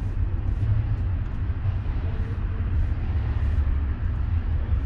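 Low, steady rumble of a passing BNSF freight train.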